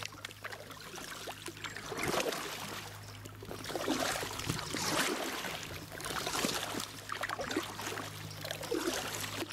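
Paddle strokes in canal water from an inflatable canoe, a swell of splashing and trickling every couple of seconds as the blade dips and drips, over a low steady hum.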